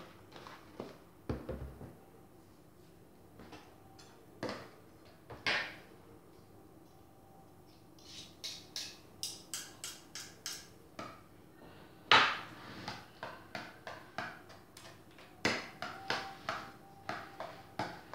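A utensil clinking and knocking against a mixing bowl while ricotta filling is stirred. The strokes are scattered at first, then come in a regular run of about three a second from about eight seconds in, with the loudest knock about twelve seconds in.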